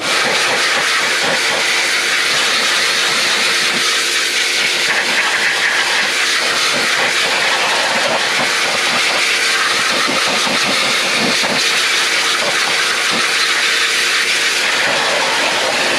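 Kärcher K2 electric pressure washer running, its jet of water spraying onto a car's engine bay: a loud, steady hiss with a faint steady hum from the machine underneath.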